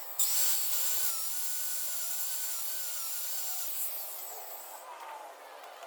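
Gas-powered concrete cut-off saw with a diamond blade cutting a retaining-wall block. The blade noise starts just after the beginning, runs steadily for about four and a half seconds with a slightly wavering pitch, then stops.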